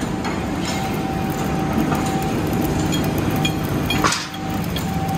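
Steady machinery hum from a steel-fabrication floor, with scattered metallic knocks and clinks from metalwork and one louder knock about four seconds in.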